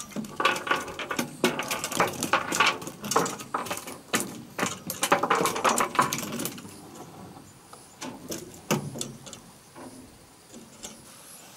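A freshly landed tilapia flapping and knocking against the boat's deck and gear in rapid, irregular thumps and rattles, dense for the first six or seven seconds and then sparser and quieter.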